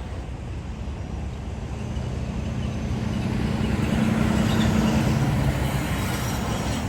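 Street traffic: a heavy vehicle passes, its low hum growing louder to a peak about four to five seconds in, then easing off.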